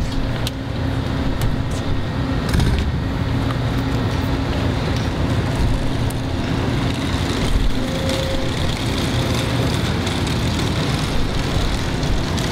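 A steady low mechanical drone with a constant hum, like an engine running nearby.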